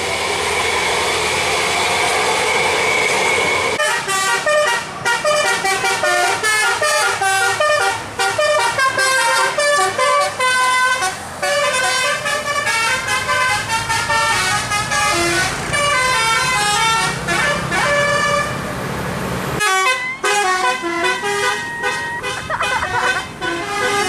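Basuri DAV 'telolet' musical horn on a tour bus playing a fast tune of short stepped notes, over the engine running. For the first four seconds only the engine and one steady high tone are heard; near the end, after a brief break, another telolet horn plays a similar tune.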